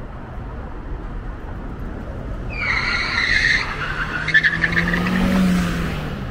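Street traffic, with a passing vehicle giving a high-pitched squeal twice: a short squeal about two and a half seconds in, then a rougher one from about four seconds. Under the second squeal a low engine hum swells and fades.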